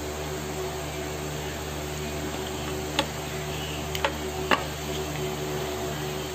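Three sharp plastic clicks a little after the middle, as an HDMI cable and its connector are handled, over a steady background hum made of several fixed tones.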